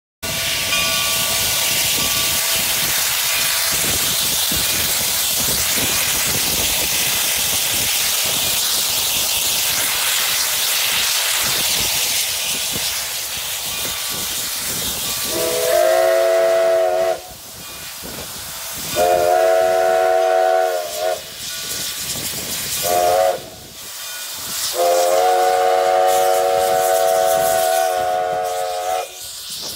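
Alco 2-6-2 steam locomotive (McCloud River Railroad No. 25) hissing steadily as steam vents from around its cylinders, then sounding its chime whistle in four blasts, long, long, short, long: the grade-crossing signal.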